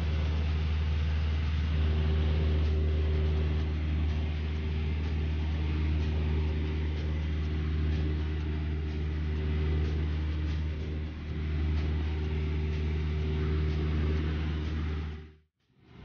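Steady drone of a light aircraft's piston engine and propeller heard inside the cabin, a deep hum with overtones over a rush of air noise. It cuts off abruptly near the end.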